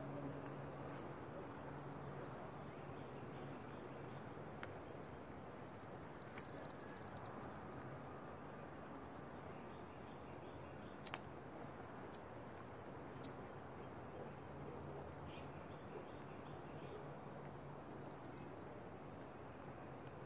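Faint outdoor ambience: a steady low hum, with birds chirping faintly now and then and a few sharp clicks.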